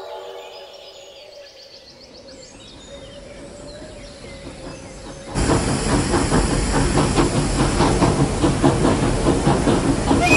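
Steam locomotive sound effect. It is quiet at first, with a faint whistle tone trailing away. About five seconds in, the sound of the engine running close by cuts in suddenly and loudly: a heavy rumble with rapid rhythmic chuffing beats and hiss.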